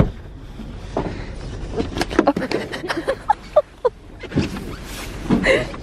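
Close handling noise: winter clothing rustling and rubbing against the microphone, with irregular clicks and knocks. A sharp knock comes right at the start and a dense run of crackles comes about two seconds in.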